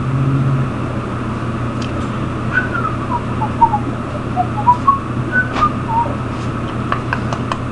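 A short whistled tune of about a dozen quick notes, falling and then rising in pitch, over a steady low hum. A few faint, evenly spaced clicks follow near the end.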